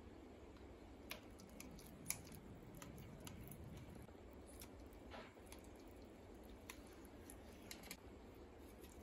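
Faint clicks and scrapes of a kitchen knife cutting through set Bombay halwa and tapping the stainless steel plate beneath, a few scattered ticks about a second apart.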